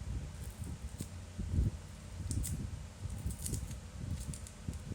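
Small hand tools working on an opened smartphone: irregular low bumps and handling noise, with a few short, sharp ticks and scrapes.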